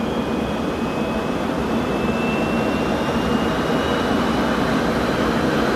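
Jet fighter's engine running in flight: a steady roar with a thin whine slowly rising in pitch.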